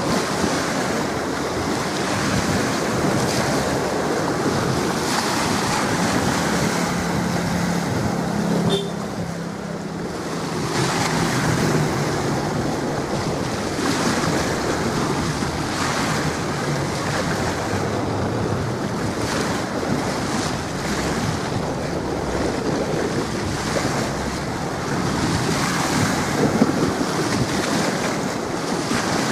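Strong wind buffeting the camcorder's microphone: a steady rushing noise that swells and eases in gusts, with choppy water washing along the shore.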